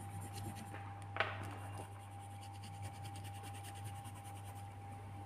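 Coloured pencil scratching lightly on paper in quick repeated strokes as a drawing is coloured in, over a steady low hum, with a single sharp click about a second in.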